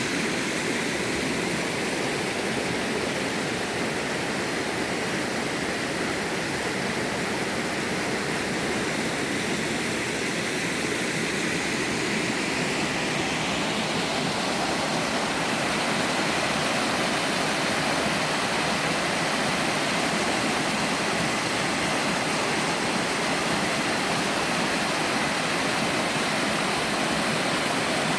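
A three-tiered mountain-stream waterfall, water sliding and cascading over rock ledges in a steady, even rush, a little louder after about sixteen seconds.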